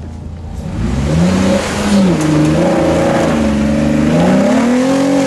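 Jeep Wrangler's engine revving hard under load as it climbs a muddy, rocky bank. The revs swing up and down several times, over a rushing noise of spinning tyres and mud.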